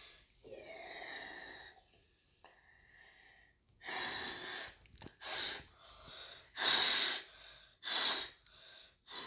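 A child blowing hard through a plastic straw into gummy slime, inflating a large bubble. There is one long blow near the start, then from about four seconds in a string of about five loud, gusty breaths into and around the straw.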